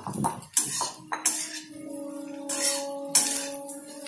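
A metal spatula clinking and scraping against a steel kadai while stirring sliced mushrooms, about five sharp knocks. From about a second in, a steady low tone sounds underneath.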